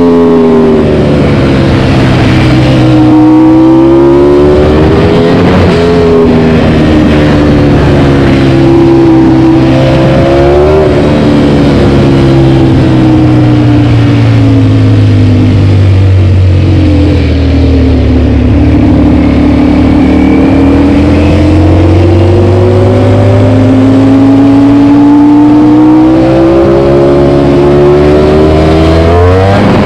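Ducati Panigale V4's V4 engine through an Akrapovič GP exhaust, heard from the rider's seat while riding. The engine note falls and rises again several times as the throttle is closed and opened, with a quick climb in revs near the end.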